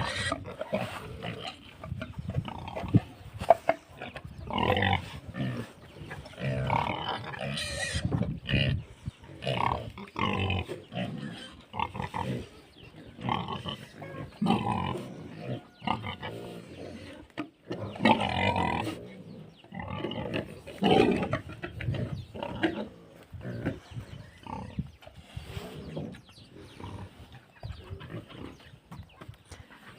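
Pigs grunting in short, irregular grunts, a few of them louder than the rest.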